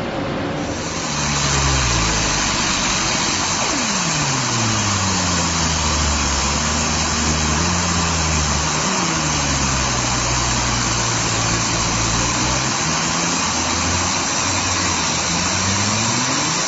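Fiber laser engraving machine running a relief-engraving job on metal: a buzzing hum whose pitch glides slowly up and down as the beam is scanned, over a steady hiss.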